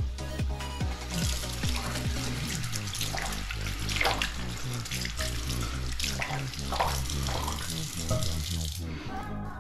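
Water running, starting about a second in and stopping shortly before the end, over background music with a steady beat.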